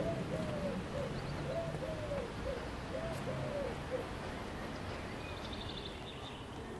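A dove cooing: a run of soft, repeated arching coos that stops about four seconds in. Near five seconds comes a brief rapid series of small high ticks over a steady outdoor hiss.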